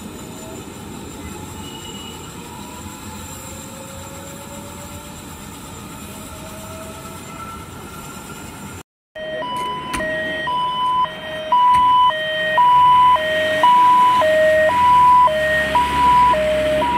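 A steady background hiss for the first half. Then, after a cut about nine seconds in, an ambulance siren takes over, sounding a loud two-tone hi-lo wail that alternates between a high and a low note several times a second.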